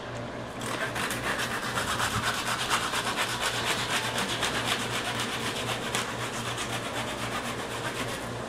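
A blade scraping over the skin of a whole tuna in quick, repeated back-and-forth strokes, a steady rasping rhythm that starts about half a second in.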